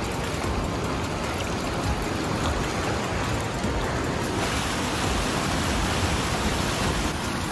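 Rushing water of a fast-flowing flooded river, a steady noise that grows brighter about four and a half seconds in.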